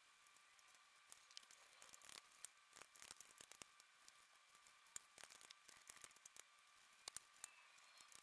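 Near silence with faint scattered ticks and rustles: a foam brush dabbing stain onto a turned wooden table leg, and nitrile gloves, over a faint steady hum.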